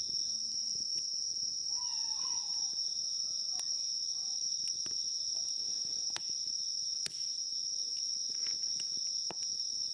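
Steady, unbroken high-pitched chorus of insects, with a few faint clicks scattered through it.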